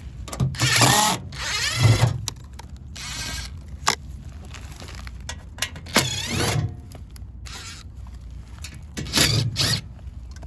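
A handheld power tool, such as a drill or driver, whirring in about four short bursts with a wavering whine, over a steady low hum and a few clicks.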